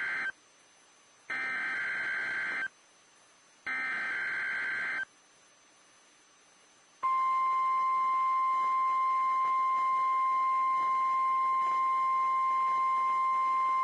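NOAA Weather Radio emergency alert test: the end of one burst of screeching SAME digital header data, then two more identical bursts each about a second and a half long with short gaps between them. About seven seconds in, the steady 1050 Hz warning alarm tone starts and holds.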